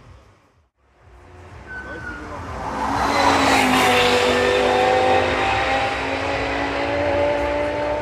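Race car engine at high revs, approaching and passing at speed. It grows louder from about a second in and is loudest around the middle. Its engine note drops slightly in pitch as it goes by.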